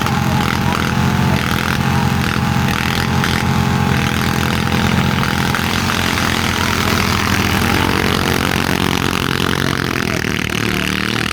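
Racing tractor engines running loud and steady, the engine note dropping near the end.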